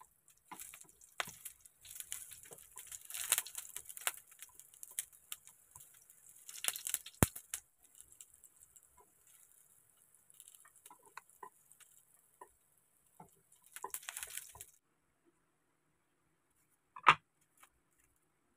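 Eggplant slices sizzling and crackling in hot oil in a frying pan, with sharp clicks and taps as a utensil turns them. The sizzle stops about 15 seconds in, and a single sharp knock follows near the end.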